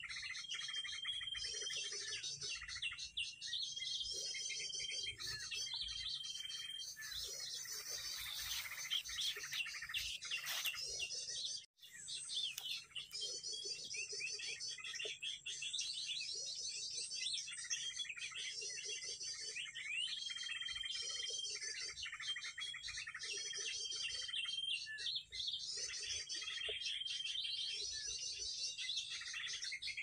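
Small-bird calls played as an MP3 lure recording for bird trapping: rapid high chirping trills with short held whistles, repeating in a regular pattern. The sound cuts out for a moment about twelve seconds in.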